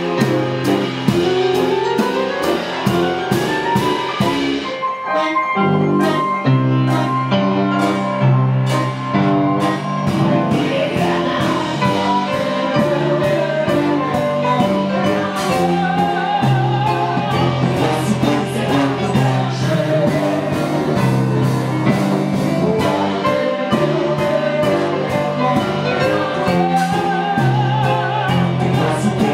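Live band music: a sousaphone plays the bass line under a drum kit and keyboard, and a woman sings the melody over it. The drums drop out briefly about five seconds in.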